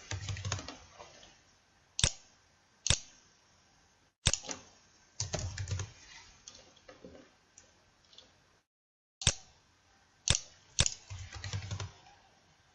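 Computer keyboard keystrokes and mouse clicks: single sharp clicks with pauses between them, and two short runs of quick keystrokes, one about halfway through and one near the end.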